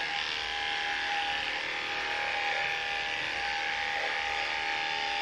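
Electric dog grooming clippers running steadily with a constant hum while clipping a Jack Russell terrier's coat.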